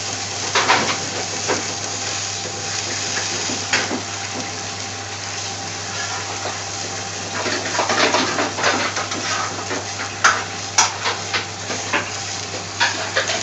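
A metal utensil clinks and scrapes against a cooking pot, with a busier run of clinks past the middle and two sharp knocks a little after, over a steady hum.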